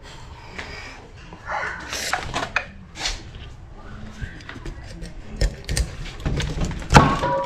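Cleaver cutting a goatfish on a wooden cutting board: knocks and thuds of the blade and handling, with several sharp knocks in quick succession in the second half.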